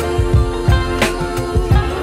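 Background music: a song in a stretch without vocals, with sustained instrument tones over a steady drum beat of about three hits a second.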